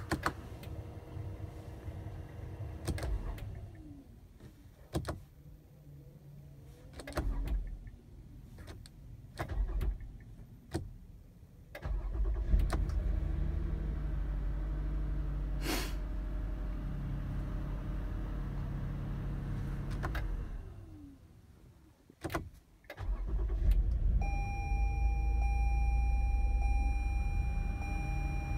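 Toyota Sienna's 3.5-litre V6 engine running, then winding down, followed by a series of sharp clicks. It starts suddenly about twelve seconds in and runs steadily. It winds down again, there are more clicks, and it restarts; a steady electronic tone sounds over it near the end. This is a hard-starting minivan that will only start while the push-start button is held.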